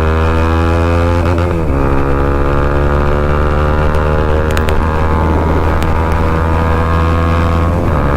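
Bajaj Pulsar NS200's single-cylinder engine through an aftermarket full-system exhaust, accelerating. The note rises, drops at an upshift about a second and a half in, then climbs again, with another shift near the end.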